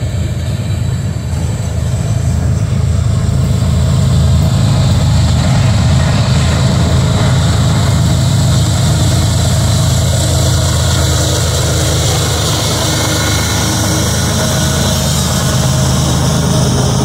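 CSX freight train rolling past, with a mid-train diesel locomotive drawing near; its engine runs low and steady and grows louder over the first few seconds as the unit approaches, then holds.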